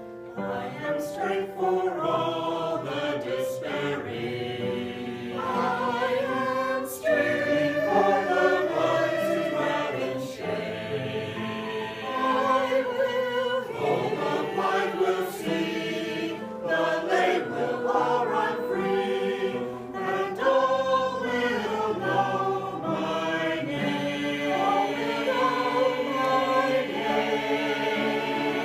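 A choir singing a gospel song, many voices in harmony.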